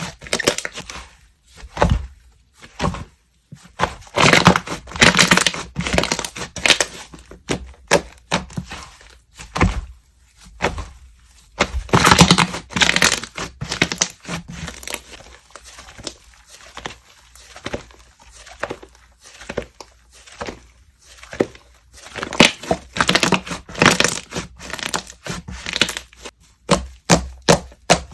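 Hands squishing, pressing and stretching a soft soufflé-type slime, giving irregular loud crackles, tearing sounds and sticky clicks as air pockets pop.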